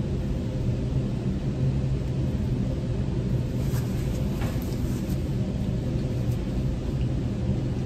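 Steady low room hum, with a few faint soft clicks of someone chewing a chicken sandwich about four seconds in.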